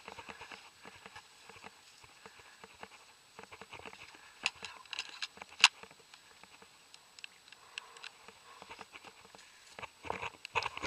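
Irregular patter of light clicks and rustles, like footsteps and movement through brush, with one sharp, loud click a little past halfway.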